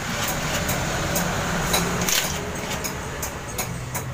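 A motor vehicle engine running steadily, easing off a little after about two seconds, with scattered light metallic clicks and clinks of hand tools.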